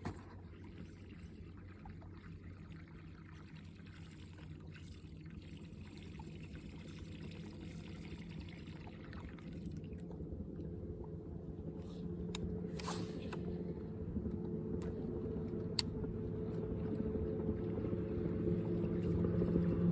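Water lapping and trickling against a boat, with a boat motor's steady hum that grows steadily louder and is the main sound by the second half. A few sharp clicks are heard past the middle.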